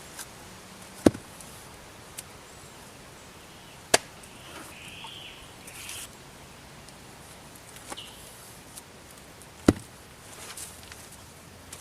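Three sharp, loud strikes a few seconds apart, about a second in, at four seconds and near the end, with a few lighter knocks and brief rustling between.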